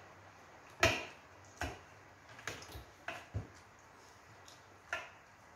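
Eating by hand from a steel plate of rice and goat-trotter pickle: about seven short, sharp clicks and taps over four seconds, the loudest about a second in.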